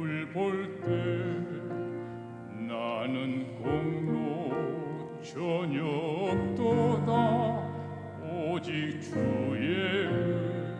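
Church praise choir singing a hymn in a classical style with strong vibrato, over steady held low notes of accompaniment.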